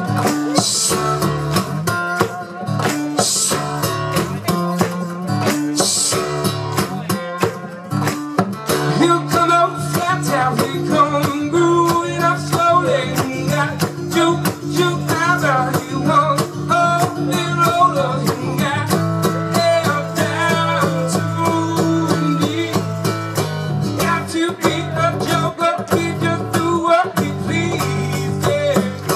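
Live acoustic guitar played hard and rhythmically, with sharp percussive strums and hits, and a man singing over it through the PA.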